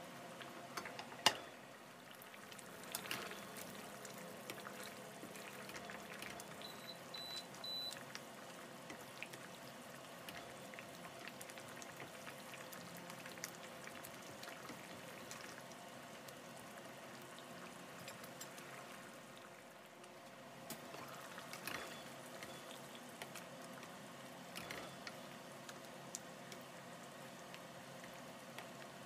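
Spare ribs and potatoes simmering in thick tomato sauce in a frying pan, a faint steady bubbling, with a wooden spatula stirring and knocking against the pan. There is one sharp knock about a second in.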